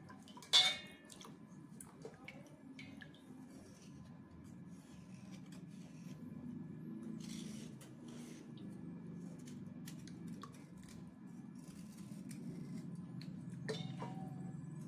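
Slate pencils being washed and scraped with a knife in a stainless-steel bowl of water: water swishing, the blade scraping the slate, and small metal clinks against the bowl. A sharp ringing clink comes about half a second in, the loudest sound, and another clink comes near the end.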